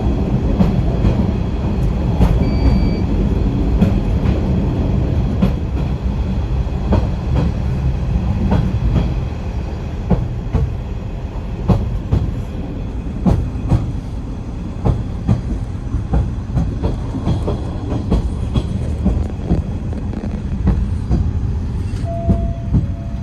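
Dual-mode vehicle (a minibus converted to run on rails) travelling along the track in rail mode: a steady low rumble with irregular clacks of the wheels over rail joints.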